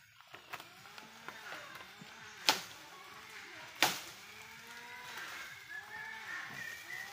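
Bamboo stems creaking and leaves rustling as a clump of bamboo is pulled down by hand, with two sharp cracks, about two and a half and four seconds in.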